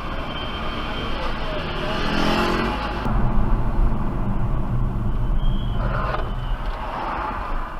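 BMW 428i convertible's M Sport brakes squealing at low speed: a thin, steady high-pitched squeal at the start and again about five seconds in, over the car's road and engine noise.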